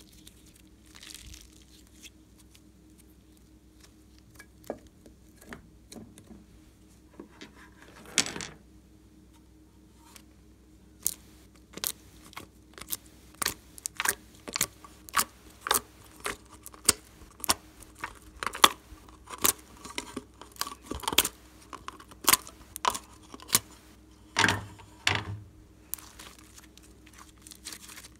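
Hands kneading and stretching glossy slime, giving sharp clicking pops as air pockets burst. Only scattered clicks at first, then a quick run of about two pops a second, with two heavier, deeper squelches near the end.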